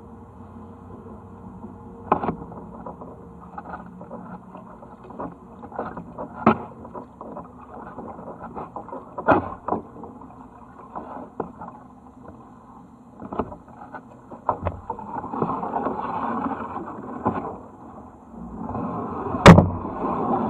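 Kayak paddling: paddle blades dipping into and dripping water, with scattered sharp knocks. The loudest knock comes about a second before the end. Louder swells of splashing water come a few seconds before the end and again right at the end.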